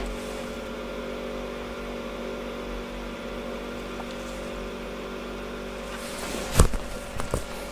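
A steady machine hum with several even tones, and a sharp tap about six and a half seconds in, followed by a few lighter taps.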